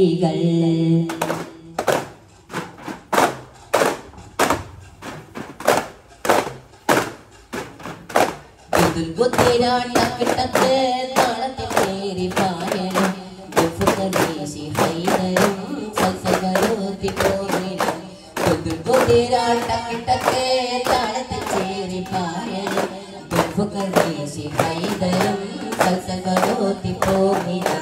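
Duff muttu: a group of daf frame drums struck by hand in a steady, driving rhythm. A group chant joins about nine seconds in and carries on over the drumming.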